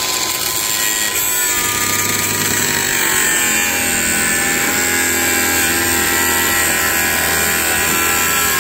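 Handheld angle grinder with a cutting disc running: a loud, steady motor whine over hiss, its pitch easing down slightly a second or two in and then holding.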